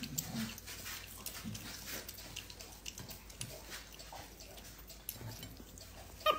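A capuchin monkey eating. It makes quiet, irregular small clicks and crunches as it chews and handles food, with a few soft low taps.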